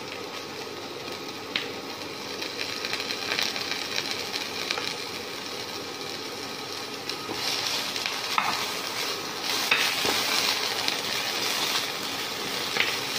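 Shredded fingerroot (krachai) sizzling in hot oil in a wok, with a spatula stirring it and a few taps against the pan. The sizzle grows louder about seven seconds in.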